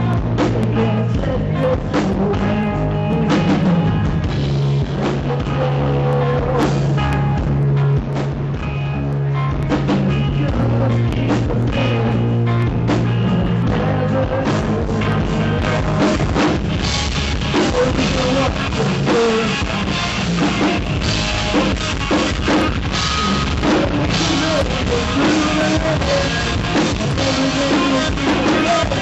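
Live rock band playing: a drum kit, electric bass and guitar together. The band holds long low bass notes at first, then gets brighter and busier about halfway through.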